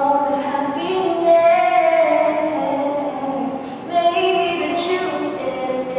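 A young woman singing a slow song unaccompanied, holding long notes and gliding between them.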